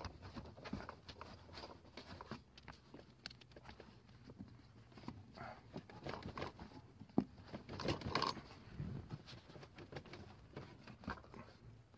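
Scattered light knocks, clicks and scrapes of handling as the Chevy Astro van's engine cover (doghouse) is worked loose and lifted off, with a louder cluster of knocks about seven to eight seconds in.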